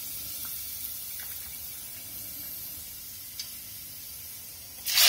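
Cumin seeds and asafoetida sizzling gently in hot oil in a steel pot: a faint steady hiss with a few light crackles. Near the end it jumps suddenly to loud, vigorous sizzling as soaked, boiled lotus stem slices go into the oil.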